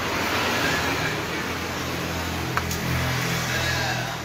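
A motor vehicle's engine running, swelling in level and easing off near the end, with one sharp click about two and a half seconds in.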